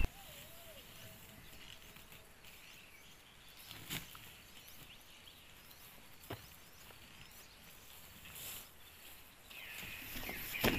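Quiet outdoor ambience with faint bird chirps, broken by a sharp click about four seconds in and another about six seconds in, then a rattle and rustle near the end as a metal-framed folding camp cot is opened out and set down on the grass.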